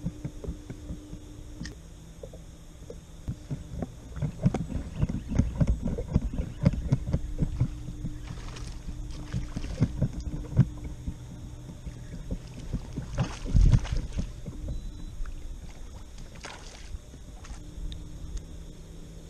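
Handling noise on a fishing kayak while a fish is fought and brought alongside: a run of irregular knocks and thumps against the hull, with a heavier thump about two-thirds of the way through.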